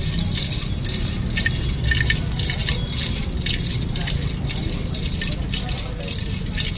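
Kaccha chiwda (puffed rice snack mix) being tossed and mixed by hand in a stainless steel bowl: a rapid, dense rustling and rattling of the dry pieces against the steel, over a low street rumble.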